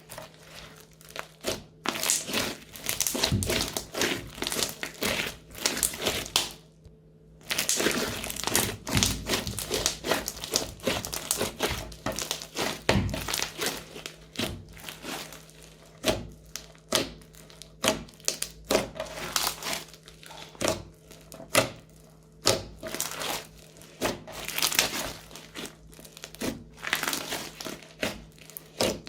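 Crunchy slime being squeezed and worked by hand, crackling and crinkling in dense, irregular bursts of small clicks, with a brief pause about seven seconds in.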